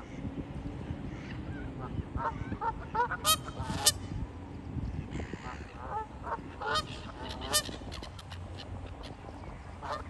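Canada geese honking in loud harsh bursts, clustered about three and a half seconds in and again around seven seconds, with scattered shorter calls between, over a steady low rumble.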